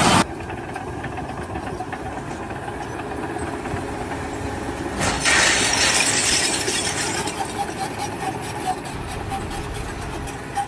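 Engine or machinery running steadily with a noisy rumble, changing abruptly about five seconds in.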